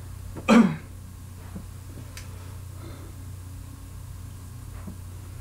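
A man coughs once, short and sharp, about half a second in; afterwards only a steady low hum remains.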